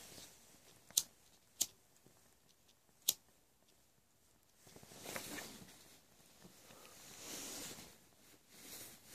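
Homemade wax gasification stove burning under a pot of water: three sharp ticks in the first three seconds, then two soft rushing swells of noise.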